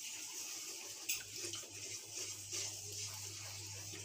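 Béchamel sauce simmering in a frying pan while a wooden spatula stirs it: a soft, even hiss with a few faint ticks of the spatula on the pan, over a low steady hum that sets in about a second in.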